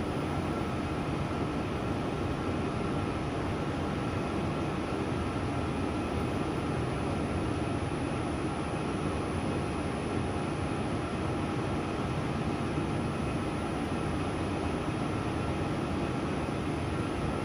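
Wave soldering machine running: a steady mechanical hum with faint, steady whining tones over it.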